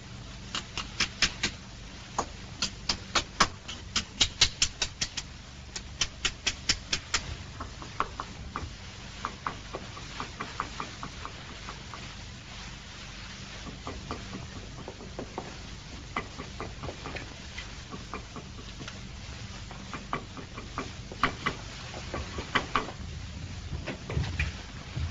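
Rapid sharp taps and clicks, several a second, in quick runs for the first seven seconds, then sparser and fainter, with more runs near the end, as a small tool works at something by hand. A faint steady low hum from the old soundtrack sits underneath.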